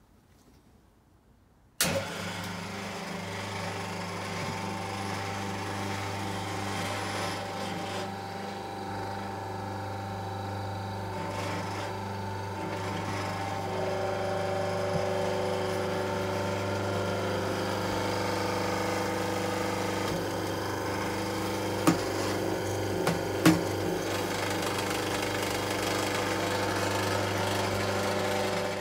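Restored vintage electric motor switched on from rest, starting about two seconds in and then running steadily with a low hum and a few steady higher tones. A couple of short clicks near the end.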